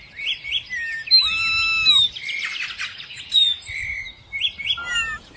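Songbirds chirping: a run of varied clear whistled notes, some sliding downward, with a quick trill about two and a half seconds in.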